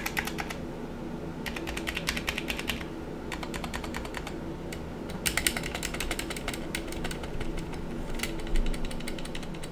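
Long stabilized keys on a Drop Carina mechanical keyboard (Zealios V2 tactile switches, lubed Durock plate-mounted stabilizers with the band-aid mod) being pressed rapidly, in bursts of quick clacks with short pauses between them. A fan hums steadily underneath.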